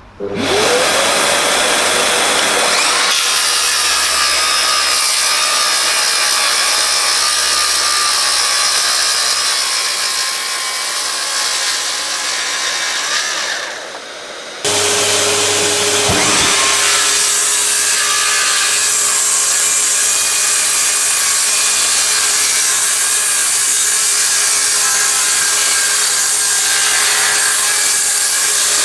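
Festool HKC55 18V cordless circular saw spinning up and cutting through wood, a loud steady whine and rasp of the blade in the cut. Just before halfway the sound drops off and breaks, and a second cut starts and runs steadily.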